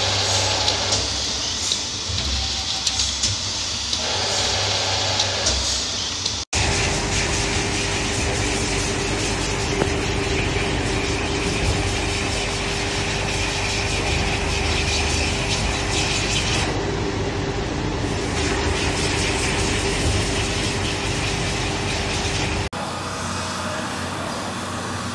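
A spinning polishing wheel grinding saw-blade teeth, then after a break about six seconds in a long, steady hiss of air blowing dust off a stack of saw blades, with a steady hum under it. Near the end it changes to a quieter, duller steady noise.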